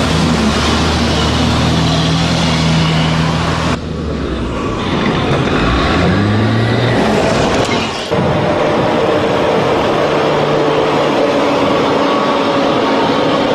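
Bushmaster armoured vehicle's diesel engine running with a steady drone, broken by two abrupt cuts. Between the cuts its pitch rises as it revs up.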